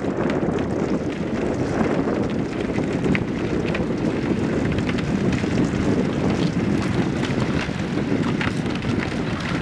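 Floatplane's aluminum floats pushing through thin lake ice: scattered sharp cracks and clinks of ice sheets breaking against the floats, over a steady rushing of wind on the microphone.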